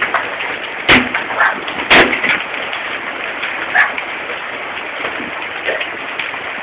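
Hail falling in a steady hiss with scattered small hits, and two sharp, loud hailstone impacts about one and two seconds in.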